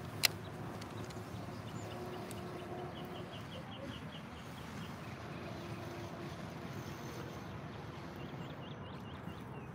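Open-air lakeside ambience: a steady low hiss with faint rapid chirping from a bird about three seconds in and again near the end, and a single sharp click just after the start.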